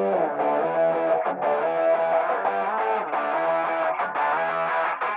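Background music led by a guitar, with sustained notes and chords that change every half second or so and a few brief breaks.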